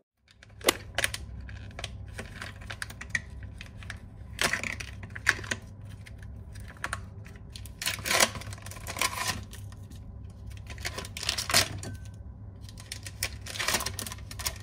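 Thin plastic film of a sealed prosciutto pack crinkling and crackling as it is peeled open by hand: irregular clusters of sharp crackles over a low steady hum.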